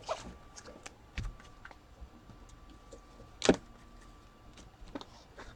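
Sparse light clicks and handling noises, with one louder knock about three and a half seconds in.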